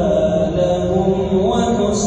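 Imam's melodic Quran recitation in a man's voice, long held notes that step and glide in pitch, rising about one and a half seconds in.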